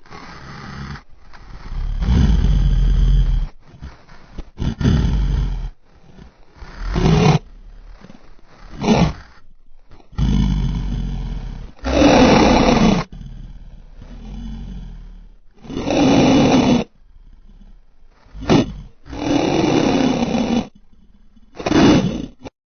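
Custom Godzillasaurus monster roars: about ten separate roars one after another, each a second or so long with short gaps between. They are built from layered, pitched-down animal and film-dinosaur calls such as big cats, bears, elephants and T. rex.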